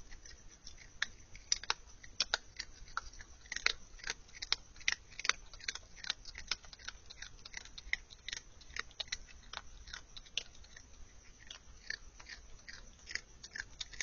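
Virginia opossum chewing dry kibble: a fast, irregular run of sharp crunches and clicks, several a second.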